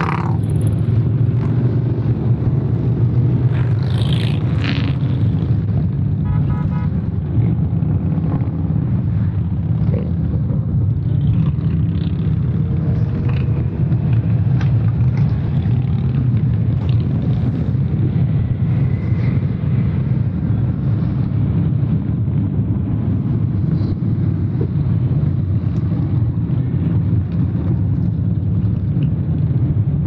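A steady stream of large touring motorcycles riding past, their engines making a continuous low sound that never breaks as one bike follows another.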